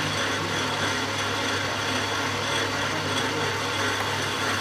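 Manual metal lathe running steadily, its chuck spinning while the tool cuts the metal workpiece, a constant motor hum under the cutting noise.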